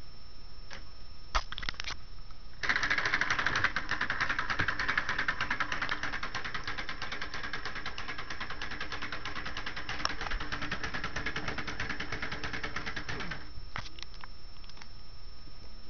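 Lego three-cylinder solenoid engine running: a fast, even mechanical clatter of its solenoid plungers and Lego linkage. It starts about two and a half seconds in and stops about two and a half seconds before the end, with a few single clicks before it.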